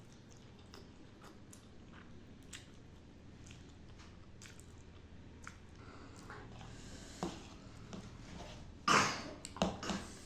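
Close-up mouth sounds of a person eating spicy instant noodles: soft wet chewing and small mouth clicks, with a brief louder burst about nine seconds in and a few sharper clicks just after.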